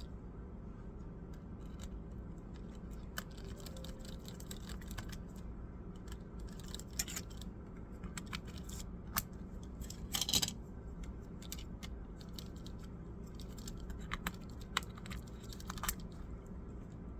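Scattered small clicks and short scrapes of hands and tools handling laptop parts during a motherboard replacement, the loudest a brief scratchy rustle about ten seconds in, over a steady low hum.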